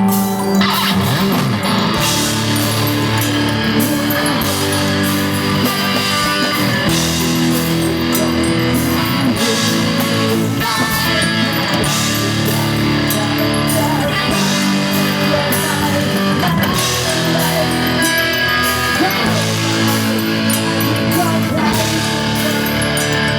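Pop-rock band playing an instrumental intro: electric guitar over bass and drums, with no vocals yet.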